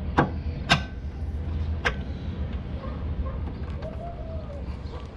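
Three sharp clicks and knocks as a gas hood strut is handled and fitted to the car, over a low steady rumble, with a faint short squeak about four seconds in.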